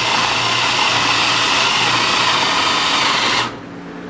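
Bostitch 18 V cordless drill running steadily, boring with a 3/4-inch bit, then stopping abruptly about three and a half seconds in.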